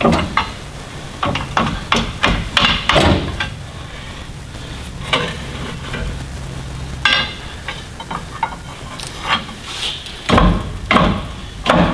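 Irregular hammer blows and metal clanks on a semi-trailer's brake drum, knocking it loose from the wheel hub.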